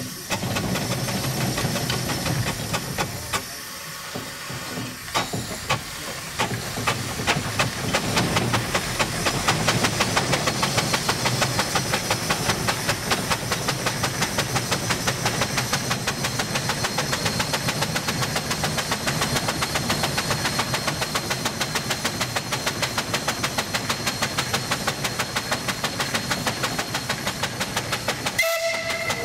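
Steam donkey engine running under load as it hauls a log on its cable: the exhaust chuffs in a quick, even beat that speeds up over the first several seconds and then holds steady, over a steady steam hiss. A thin high whine joins in about ten seconds in.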